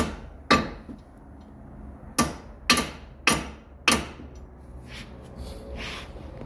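Hammer striking a wheel stud in a car's hub: six sharp blows at an uneven pace, the last about four seconds in.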